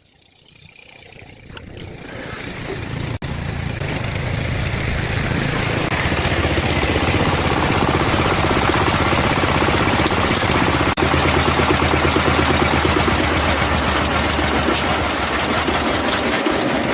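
Engine running steadily after growing louder over the first few seconds, with a low even hum under a broad hiss.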